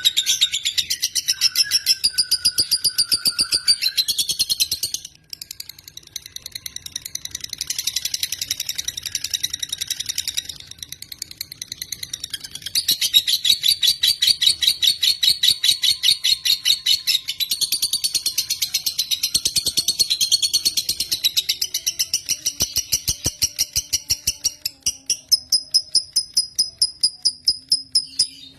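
Lovebird chattering in a long, fast trill of high-pitched pulses. It dips briefly about five seconds in and again near twelve seconds, then stops just before the end.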